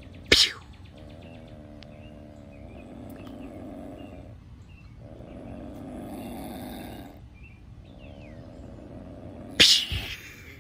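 Opossum growling low and steadily with its mouth gaping, in long stretches broken by two short pauses. A sharp, loud 'pew' sound comes just after the start and again near the end.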